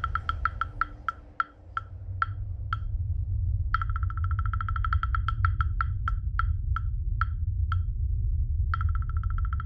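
Runs of sharp, hollow, wood-block-like knocks that start rapid and slow down as they thin out over about two seconds. A new run starts about four seconds in and another near the end, over a steady low rumble.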